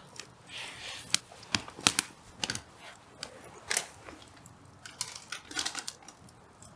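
Hardwood firewood crackling in a campfire, with sharp, irregular pops and snaps.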